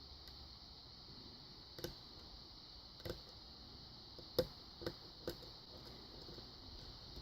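Sharp metallic clicks from a Kwikset pin-tumbler lock being single-pin picked: security pins setting and counter-rotating the core under tension. About five distinct clicks come over a steady faint hiss, the loudest a little past halfway.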